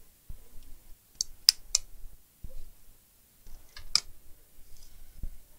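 Scattered sharp clicks and a few dull knocks of small tools and parts being handled on a repair bench: three quick clicks about a second in, another near the middle.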